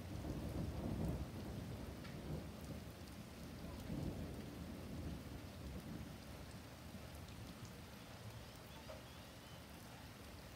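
Thunder rumbling over steady rain. The low rumble swells right at the start, peaks about a second in and again around four seconds, then dies away over the next few seconds, leaving the even hiss of rain falling.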